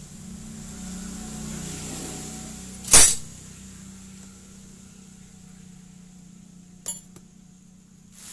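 Metal tools clinking on a small four-stroke generator engine's cylinder head while a rocker-arm fastener is tightened with a long socket wrench: one loud clank about three seconds in, then two short sharp clicks near the end. A low steady hum runs underneath.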